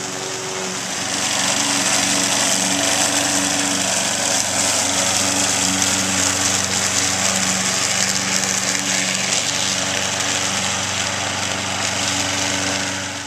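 Toro walk-behind gas lawn mower running on its own, circling on a tether around a post and cutting through grass and fallen leaves. The engine's steady hum gets louder about a second in as the mower comes near.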